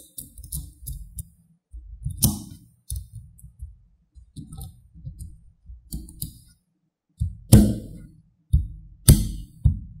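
Small magnetic balls clicking and snapping together as they are pressed into a cube, with dull knocks against the tabletop under the clicks. The sharpest snaps come in the last three seconds, about three of them.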